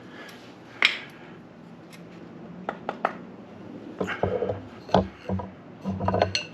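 Scattered wooden knocks, clicks and rubbing from a cedar bow drill set being worked, with the sounds coming thicker in the second half.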